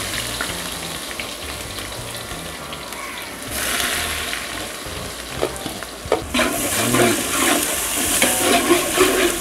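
Sliced onions sizzling as they fry in hot oil in a large aluminium pot. From about six seconds in, a metal ladle scrapes and knocks against the pot as the onions are stirred.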